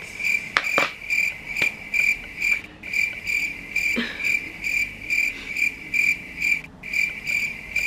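Cricket chirping in an even rhythm, a high trill repeating about two to three times a second, with a brief break near the end. A few light clicks are also heard.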